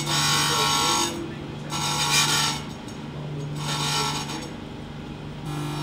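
Profile grinder's wheel grinding a high-speed tool steel cutter blade, copying a template, in three separate passes of about a second each over a steady low hum.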